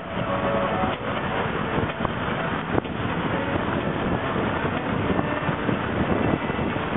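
Steady rushing road and wind noise of a car driving along a paved road, heard from the moving vehicle, with one sharp click just under three seconds in.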